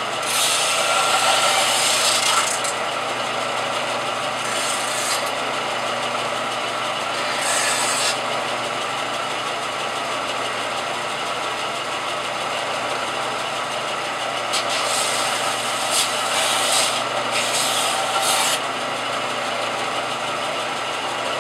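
Electric bench sander running steadily while a thin piece of copper-tinted sheet steel is pressed against the sanding belt to smooth its edge. The rasping of metal on the abrasive comes in passes: a long one near the start, two short ones, then a cluster of short passes in the last third.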